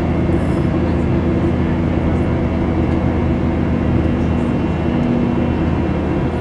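Boeing 737 cabin noise by the wing during the climb after takeoff: the jet engines and rushing air make a steady drone, with a low hum and a few steady tones.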